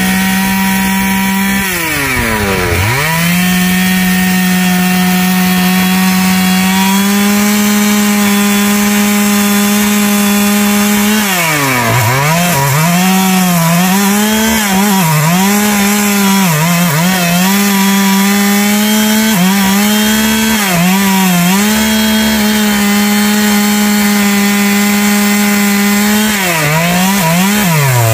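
Stihl two-stroke chainsaw running at high revs while cutting wood. Its engine note drops sharply and picks up again about 2 s in, about 12 s in and just before the end, and from about 13 s on wavers up and down as the chain bogs in the cut and recovers.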